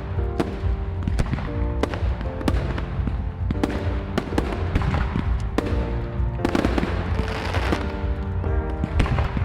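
Fireworks display: a quick run of sharp bangs from bursting shells, with a longer hissing crackle a little past halfway. Music with sustained notes plays under the bangs.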